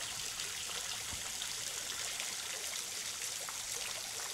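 Water of a small market fountain's umbrella-shaped jet splashing steadily onto the stone centre of its round basin, the fountain running again on a newly replaced pump.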